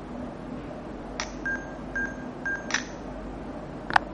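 Panasonic Lumix G9 camera taking a 6K Post Focus shot: a click, three short electronic beeps about half a second apart, then a second click. A single sharp click comes near the end.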